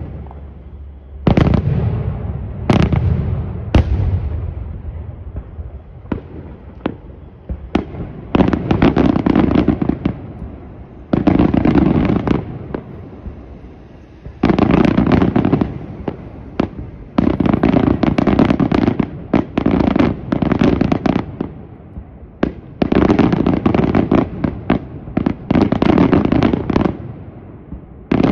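Aerial fireworks going off: a few single sharp bangs in the first four seconds, then repeated bursts of dense crackling, each lasting one to two seconds, from crackling stars breaking in the sky.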